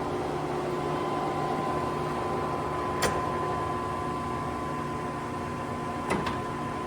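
Lion C13MB gap-bed engine lathe running under power, its spindle turning at low speed, with a steady hum and a whine that comes in about a second in. Two sharp clicks, one about three seconds in and one about six seconds in.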